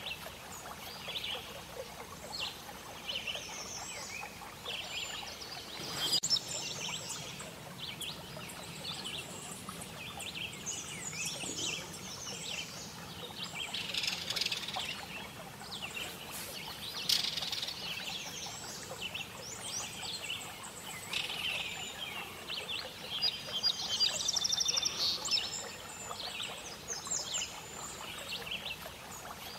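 A chorus of birds chirping and calling, many short high notes overlapping over a steady background hiss, with a fast buzzy trill near the end.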